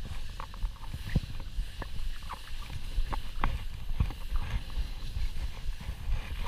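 Skis sliding through snow, heard from a camera worn by the skier: a steady low rumble with irregular sharp clicks and knocks as the skis and poles ride over the tracks.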